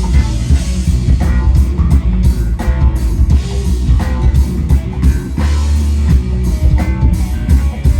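Live band playing an instrumental rock groove: a heavy bass line with drums and guitar phrases on top, no singing.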